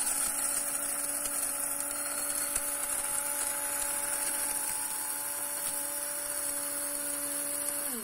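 Hamilton Beach electric blade coffee grinder running a timed coarse-grind cycle on coffee beans: a steady motor hum with the beans whirring against the blade. It stops near the end, the pitch falling as the blade spins down.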